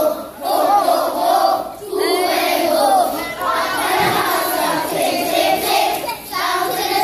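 A large group of young schoolchildren singing a Christmas carol together, loud and in phrases of a second or two with brief breaks between them.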